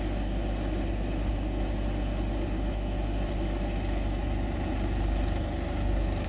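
Diesel engine of a JCB backhoe loader running steadily under load as it lifts and tips soil from its front bucket into a tractor trolley, with a slight rise about five seconds in; the tractor's engine runs alongside.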